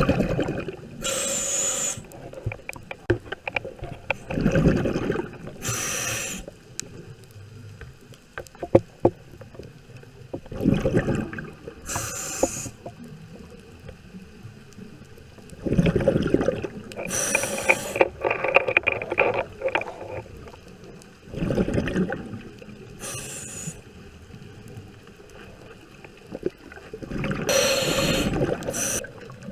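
Scuba diver breathing underwater through a regulator: alternating bursts of bubbling and hissing, one breath cycle about every five to six seconds.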